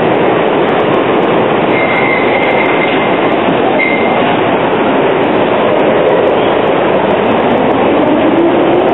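Steady din of a PCC tram standing at an underground tram platform. A thin high squeal comes about two seconds in and again briefly around four seconds, and near the end a rising motor whine is heard as a tram starts to accelerate.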